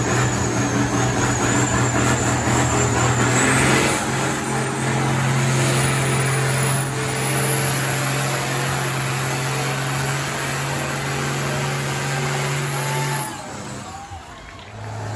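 Diesel farm tractor engine running hard and steady under full load while pulling a weight-transfer sled, with a high whistle over it that rises over the first few seconds. About 13 seconds in the engine drops off as the pull ends, and a lower engine note starts near the end.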